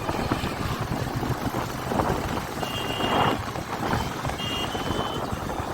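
Motorcycle riding through traffic: steady engine, road and wind noise, with short high-pitched vehicle horn beeps about three seconds in and again between four and five seconds in.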